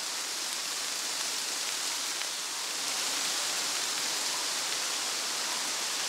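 Gentle wind blowing through grass and leaves, a steady, even hiss.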